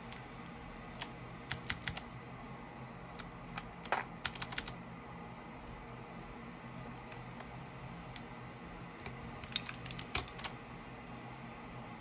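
Keychron K8 Pro mechanical keyboard keys clacking: scattered single clicks and two short rapid flurries, one about four seconds in and a louder one near ten seconds.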